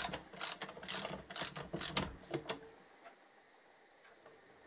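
Socket ratchet clicking as a 14 mm bolt is wound into an engine crankcase, a run of quick clicks about three a second that stops about halfway through.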